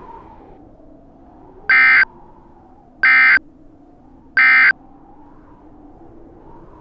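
Three short bursts of Emergency Alert System SAME digital data tones, each about a third of a second long and about 1.3 seconds apart: the End of Message code that closes an alert. A faint wavering drone sits underneath.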